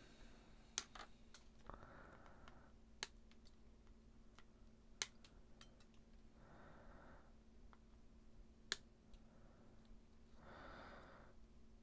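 Flush cutters snipping the excess resistor leads off the back of a soldered circuit board: a handful of sharp clicks, spread a few seconds apart.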